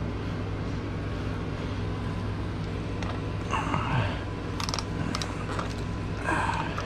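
A Torx socket on a ratchet working the belly-pan fasteners of a BMW S1000XR motorcycle. There are a few scrapes and a short run of sharp clicks about four to five seconds in, over a steady low hum.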